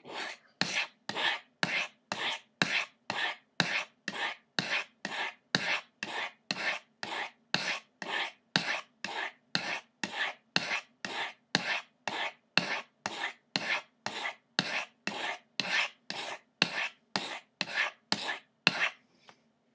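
Steel knife blade stroked down the medium-grit ceramic rods of a Lansky Crock Stick sharpener, giving short, even rasping scrapes about two a second that stop near the end. These are sharpening strokes on an edge that is still a little dull.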